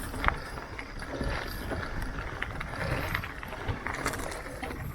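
Mountain bike rolling over a dirt trail, with a steady low rumble and frequent small clicks and rattles from the tyres and bike.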